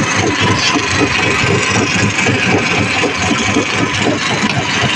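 An engine running steadily at idle, with a fast low chugging.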